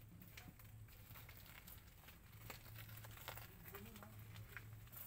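Near silence: faint scattered clicks and rustles of straw bedding as newborn puppies nurse and shift against their mother, over a faint low hum.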